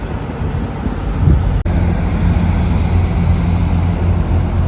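Outdoor wind and traffic noise, then after a sudden cut about a second and a half in, a car running with a steady low hum.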